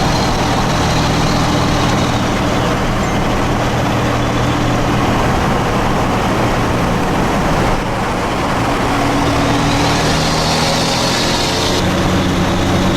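Steady engine drone and road noise from a truck under way, heard from inside; the engine note shifts slightly near the end.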